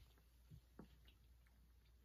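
Near silence: room tone with two faint soft ticks, about half a second and just under a second in.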